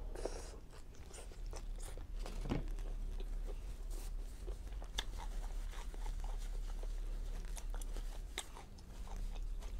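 A person chewing a mouthful of chicken fajita with peppers and onions in a tortilla: a run of short wet mouth clicks and crunchy bites.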